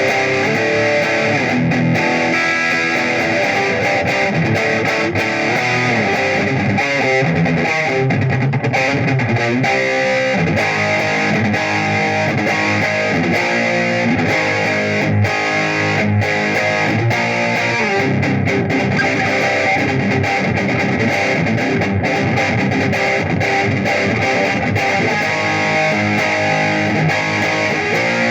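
Electric guitar played continuously through the overdriven drive channel of a Marshall Valvestate 10 practice amplifier, distorted chords and single-note riffs.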